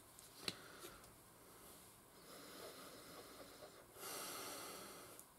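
Very quiet sniffing and breathing close to the microphone as a lotion bottle is smelled, with one faint click about half a second in and a longer sniff near the end.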